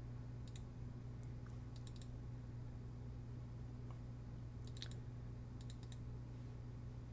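Computer mouse clicks in small groups, singles and quick doubles and triples, faint over a steady low electrical hum.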